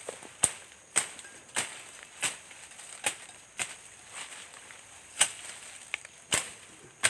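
A hand tool chopping at the ground and undergrowth: a series of sharp single strikes, roughly one every half second to a second, slightly irregular.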